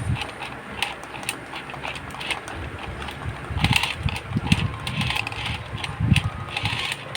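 Irregular knocks, clicks and thumps of toys being handled and knocked about, with short bursts of rustling.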